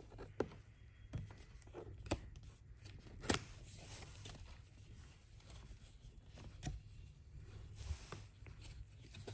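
Faint handling of a paper-and-cardboard Apple Watch box: the round paper pull tabs are peeled open and the inner box is slid out of its sleeve, giving soft rustling with a few sharp clicks and snaps.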